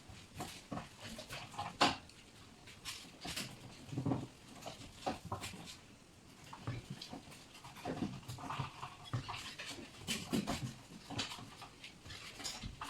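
Young raccoon kits making short panting, huffing vocal sounds, amid scattered light clicks and knocks as they scrabble about.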